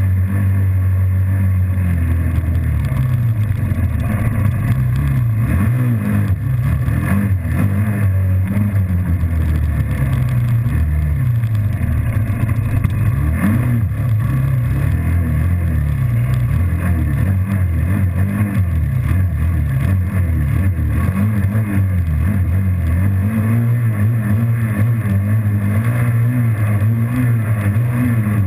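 Suzuki Z400 sport ATV's single-cylinder four-stroke engine running under way, close to the microphone, its revs rising and falling repeatedly as it is ridden.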